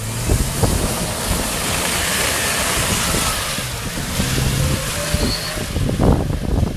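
Jeep Cherokee engine running as the 4x4 pulls out of a muddy pit and drives past, largely buried under heavy wind noise on the microphone.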